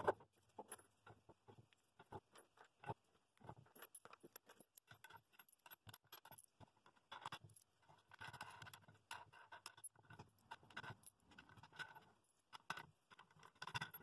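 Faint small metal clinks and clatter of washers and wing nuts being handled and threaded onto the bolts of a glue press, a run of quick irregular clicks that gets busier about halfway through.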